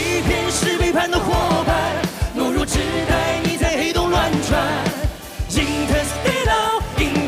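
Male vocalist singing a pop song live into a microphone over a band backing with a steady drum beat.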